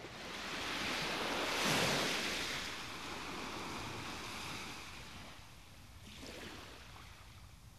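Ocean surf washing on the shore, with some wind: the rush swells loudest about two seconds in, then fades away, with a smaller swell near the end.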